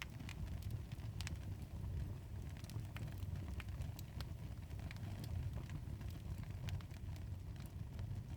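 Fireplace fire crackling, with irregular sharp pops and snaps over a steady low rumble of storm wind.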